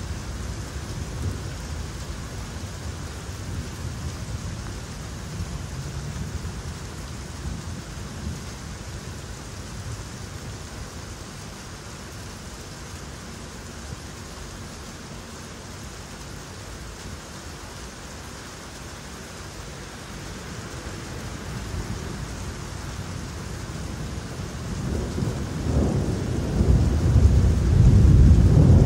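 Thunderstorm with steady rain falling. A low roll of thunder dies away over the first several seconds. About 24 seconds in, another peal of thunder builds and rumbles loudly near the end.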